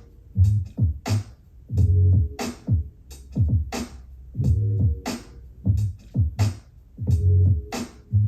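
Electronic music played on an Apple HomePod mini smart speaker for a sound test: a steady drum-machine beat with deep bass notes, some sliding down in pitch.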